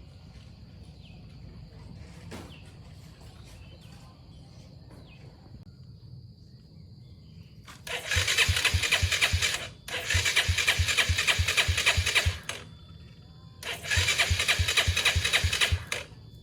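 Off-road motorcycle engine being cranked over by its starter in three separate bursts of about two seconds each, with a steady chug of about five pulses a second from the compression strokes. Each burst stops without the engine settling into a run.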